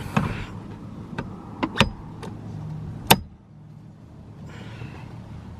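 A few sharp clicks and knocks of car parts being handled, two of them louder about two and three seconds in, over a low steady hum.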